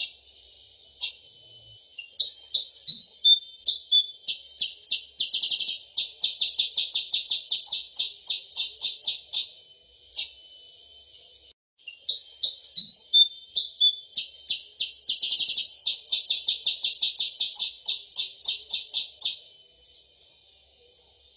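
Recorded bird-lure call for the kutilang sutra (percang): a run of sharp chirps that speeds into a fast trill of about four to five notes a second, then breaks off. The same phrase starts again after a short gap, as a looped lure track does.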